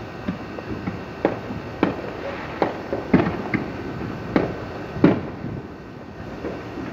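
Fireworks exploding: about a dozen irregular pops and bangs, each ringing out briefly, the loudest about five seconds in.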